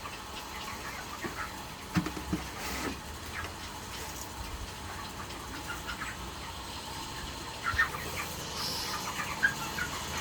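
Chickens chirping and clucking softly in scattered short calls, with a couple of brief knocks about two seconds in and again near the end.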